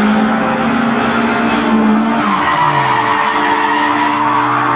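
Race car sound effect: an engine running at a steady pitch that slides lower about two seconds in, with tyre screech mixed over it.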